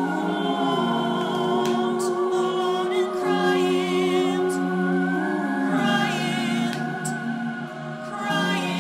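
Multitracked a cappella singing: several layered voices hold sustained harmony chords that shift every two to three seconds, the upper voice singing with vibrato.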